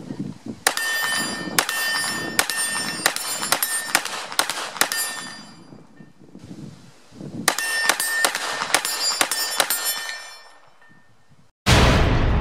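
Two strings of rapid semi-automatic gunshots from a Ruger PC Charger 9mm pistol-caliber carbine fitted with a muzzle brake: about a dozen shots, a pause of about two seconds, then about eight more, with a metallic ringing behind them. Near the end, loud intro music cuts in abruptly.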